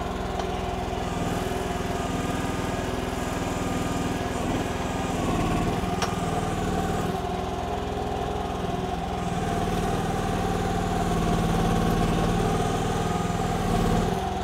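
Mini excavator's Briggs & Stratton gas engine running at a steady speed, with the sound swelling a little a couple of times as the machine works.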